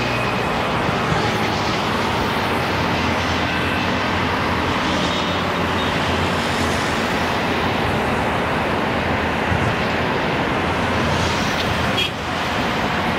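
Steady noise of heavy motor traffic on a busy highway, heard from a bicycle riding along it, with a brief dip near the end.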